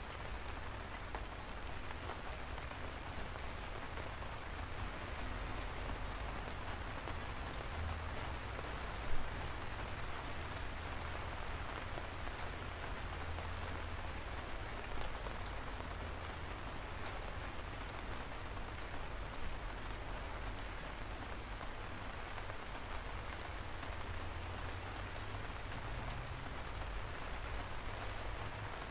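Steady rain falling, with single drops ticking here and there over a low, even rumble. One louder drop or tap stands out about nine seconds in.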